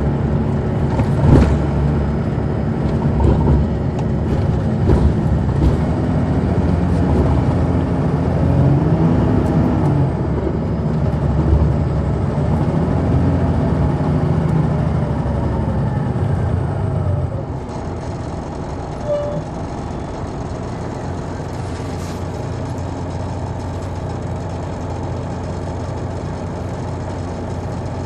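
Detroit Diesel Series 60 engine of an MCI D4000 coach heard from inside at the back of the bus, its pitch rising and falling as it drives, with a few sharp knocks and rattles. About 17 seconds in it drops to a quieter, steady idle.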